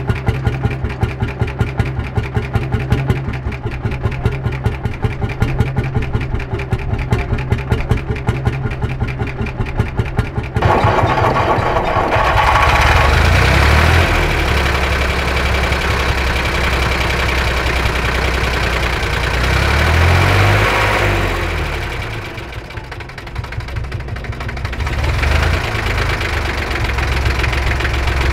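Lanz Bulldog's single-cylinder two-stroke hot bulb engine idling with an even, rapid beat of pulses. About ten seconds in it gives way to a Hanomag diesel tractor engine running, its speed rising twice and dipping briefly near the end before picking up again.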